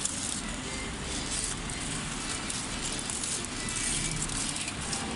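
Crumpled aluminium foil crinkling and crackling as it is pulled open off a clay matka pot, in irregular rustles.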